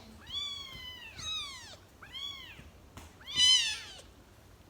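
Young kittens, about two to three weeks old, mewing: several high, arching cries, the loudest about three and a half seconds in. They are orphaned kittens crying for food while being coaxed to take warmed milk.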